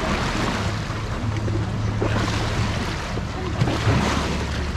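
Rabelo river boat under way: a steady low engine hum under the rush of water along the hull, with wind buffeting the microphone.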